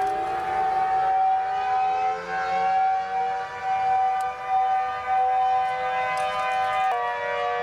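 Civil defense siren sounding a steady wail: several tones held together, some slowly rising in pitch, with the tones shifting abruptly near the end.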